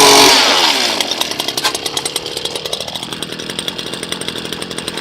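Power ice auger's motor winding down from full speed about half a second in, then running slowly with a rapid, regular ticking.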